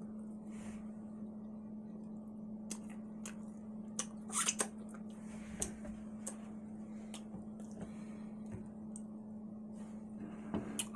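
Close-up eating sounds of someone eating steak and mashed potatoes: chewing, wet squishy mouth sounds and scattered clicks, loudest a little over four seconds in, over a steady low hum.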